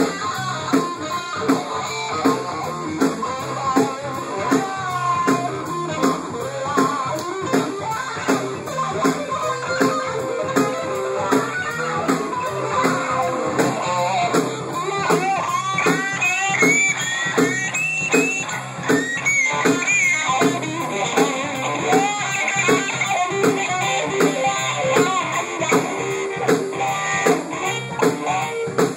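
Live blues band playing electric guitar, bass guitar and drums over a steady beat. About halfway through, the electric guitar plays a lead line with bent notes.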